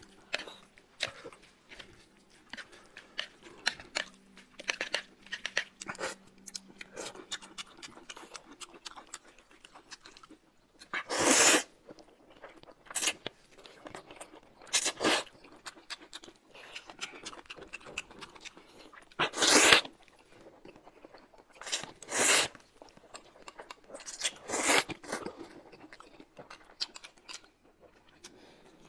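Close-up eating sounds: chewing and smacking with many small wet clicks, and a handful of louder slurps of noodles.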